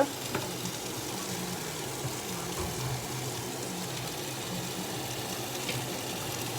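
Chopped purple cabbage sizzling steadily in a very hot pot under its glass lid, over a low steady hum.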